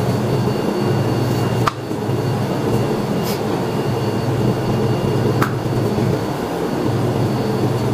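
Steady low machine hum of room noise, with two light clicks about two and five seconds in.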